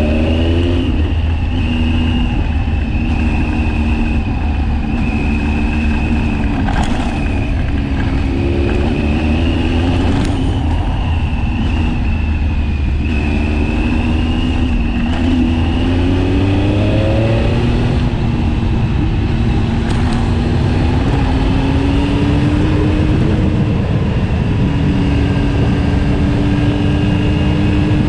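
KTM 1090 Adventure's V-twin engine under way on a dirt road, its note rising several times as the bike accelerates through the gears, then holding steady near the end, over a constant low rumble.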